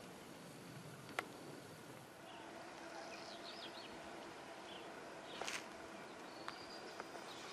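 Faint outdoor ambience with small birds giving short chirping calls, over a faint steady hum. There is a single sharp click about a second in.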